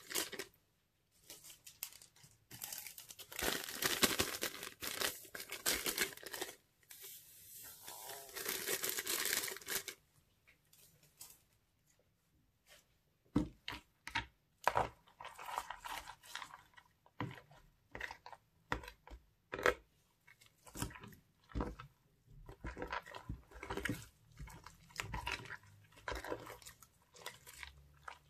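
Thin plastic zip bags crinkling as they are handled and emptied of glitter and sequins, in dense bursts for about the first ten seconds. After a short quiet spell, slime is stirred and squeezed with a plastic spoon and fingers, giving many short clicks and crackles.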